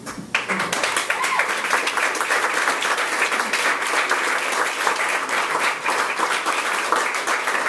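Audience applauding, breaking out suddenly about a third of a second in and then keeping up steadily.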